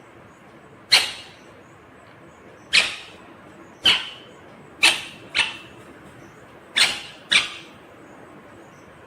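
Indian ringneck parrot giving seven short, sharp calls at uneven intervals, two of them in quick pairs near the middle and the end.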